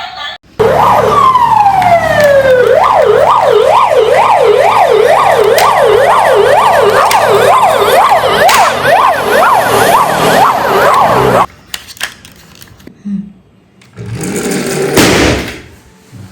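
Electronic toy emergency-vehicle siren: a long falling wail, then a fast rising-and-falling yelp about twice a second. It cuts off suddenly, followed by a few faint clicks and one short loud burst of noise.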